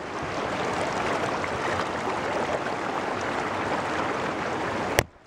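Stream water rushing and splashing over a stone ledge, a steady, even rush. It cuts off abruptly with a click near the end.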